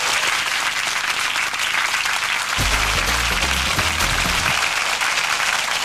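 Studio audience applauding steadily, with a short deep bass music sting, the show's ident jingle, about two and a half seconds in, lasting about two seconds.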